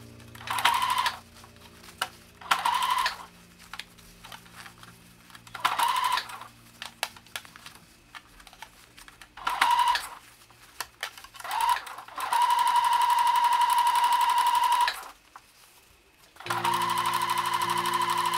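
Bernette B37 computerized sewing machine stitching slowly through several layers of heavyweight canvas around a rounded corner, in short stop-start bursts of under a second. After about twelve seconds it runs steadily for about three seconds, stops briefly, then runs steadily again to the end.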